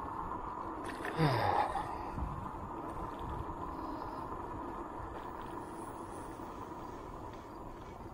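Zero 11X electric scooter on the move: wind buffeting the chest-mounted microphone under a steady high whine from the hub motors that slowly fades. About a second in comes a short sound falling in pitch.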